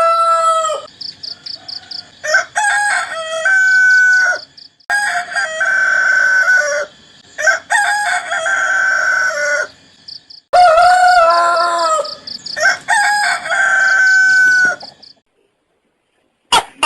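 Rooster crowing again and again, about six long cock-a-doodle-doos a couple of seconds apart, stopping shortly before the end.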